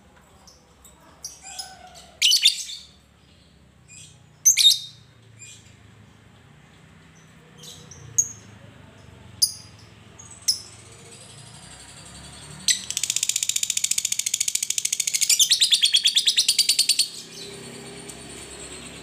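A Fischer's lovebird calls. First come several short, sharp single chirps, spaced a second or two apart. Then, past the middle, about four seconds of fast, continuous chattering trill: the long "ngekek" that keepers prize in a fighter lovebird.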